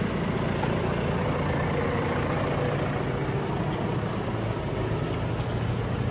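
John Deere 6130R tractor's four-cylinder diesel engine running steadily as it pulls a straw bedder through mud.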